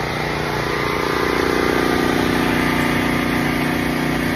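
An engine running steadily with an even hum, growing slightly louder about a second in.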